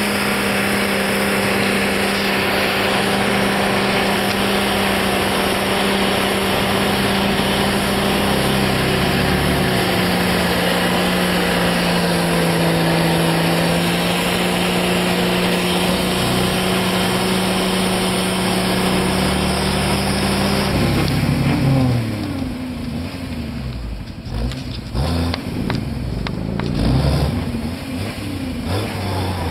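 Jeep Wrangler's engine held at high revs while its oversized mud tires spin and churn through deep mud. About two-thirds of the way through the revs drop, then rise and fall in short blips.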